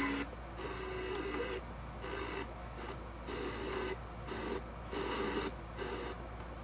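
A portable radio's speaker playing broadcast sound that keeps breaking up, dropping in and out every half second or so.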